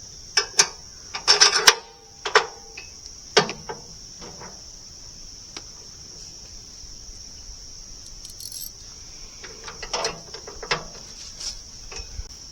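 Steady high-pitched insect chorus, with metal clinks and clanks from tools and parts being handled, several in quick succession in the first few seconds and a few more near the end.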